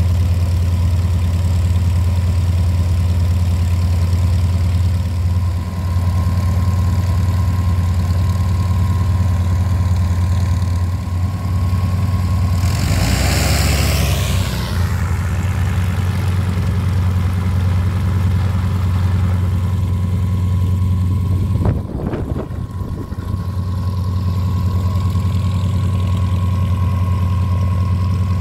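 Yak-52's nine-cylinder radial engine running steadily at idle, a low even hum with a steady whine above it. About halfway a rush of noise swells and fades over about two seconds, and a sharp knock comes about three-quarters of the way through.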